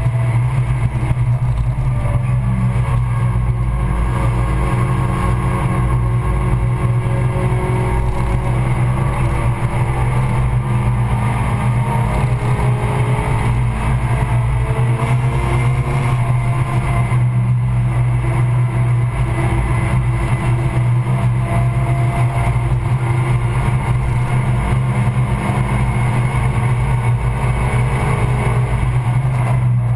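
Stage 2 tuned Suzuki Swift Sport's 1.6-litre four-cylinder engine working hard on track, heard inside the cabin. The engine note rises and falls as the car accelerates and lifts through the corners.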